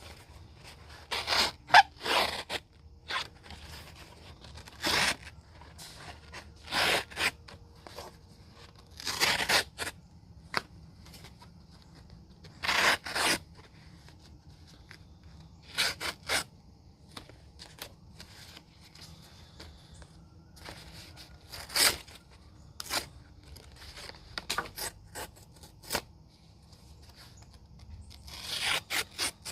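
Rough Rider Half Hawk knife cutting into a piece of siding: a dozen or so short cuts, each under a second, at uneven intervals.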